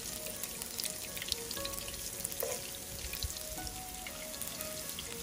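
Garlic cloves and ginger sizzling in hot cooking oil in a frying pan, a steady crackle with many small pops.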